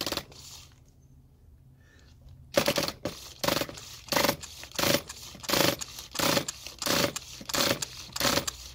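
Pull-start ripcord on a Redcat Earthquake 3.5 nitro engine being yanked again and again, a whirring stroke about every 0.7 seconds, starting a couple of seconds in. The engine is being cranked with its exhaust port plugged to prime it with fuel, with no glow plug igniter on, so it does not fire.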